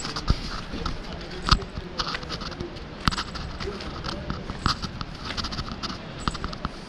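Footsteps scuffing on a gritty concrete path: uneven sharp steps and scrapes, the loudest about a second and a half in.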